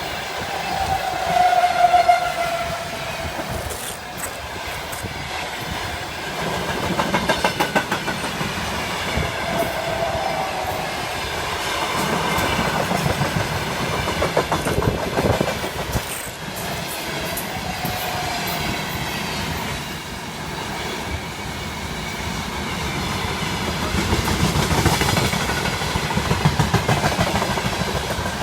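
Freight train behind a 2ES6 electric locomotive rolling past, its wagon wheels clacking over the rail joints in rhythmic runs. A few brief high whining tones rise over the rumble now and then.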